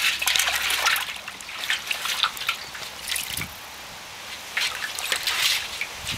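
Pet mink splashing and paddling in a galvanized tub of water: irregular splashes and drips, with a short lull about halfway.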